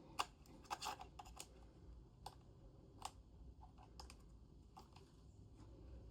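Faint, irregular small clicks and taps from hands handling a Sony ZV-1F compact camera as it is set up and switched on, about a dozen in all, the sharpest near the start.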